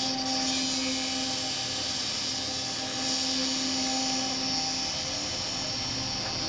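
Angle grinder running steadily against metal, with a constant whine that does not let up.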